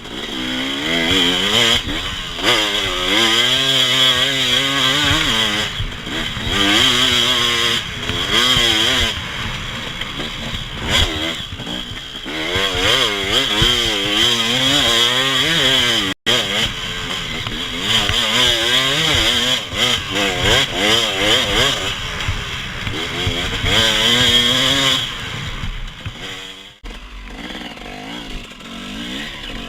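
Off-road vehicle engine revving up and falling back again and again as it is ridden over rough ground. Near the end it runs quieter and lower.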